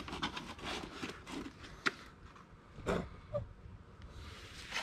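Rustling and light clicks from a gloved hand handling a cardboard oil filter box, with a sharp tick about two seconds in and a louder rustle near three seconds.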